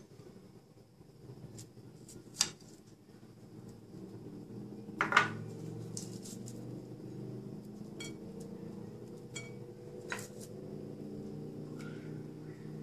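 A metal spoon clinks against a ceramic plate and bowl about five times, the loudest about five seconds in, as roasted garlic is scooped and spooned over greens. A low steady hum comes in from about four seconds.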